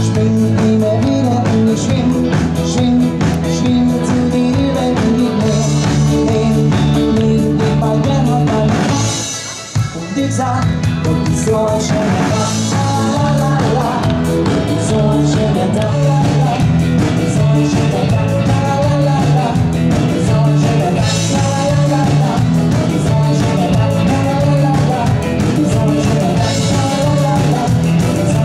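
Live band playing a song on drum kit, electric guitars and bass, with some singing. The sound drops away briefly about nine and a half seconds in, then the band comes back in.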